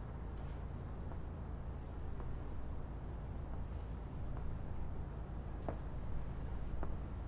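Crickets chirping at night: short pulsed chirps every two seconds or so over a faint steady high trill, with a steady low rumble underneath.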